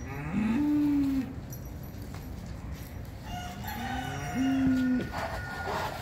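Cattle mooing twice: two long low calls, each rising in pitch and then held for about a second, some three seconds apart.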